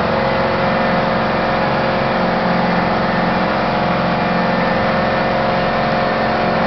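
Motorboat engine running steadily under way, with a constant hum and the rush of water from the wake.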